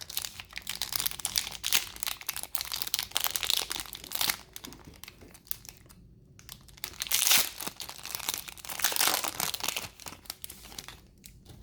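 Foil wrapper of a Pokémon trading-card booster pack being torn open and crinkled, in several spells of crackling rustle, busiest in the first few seconds and again near the end.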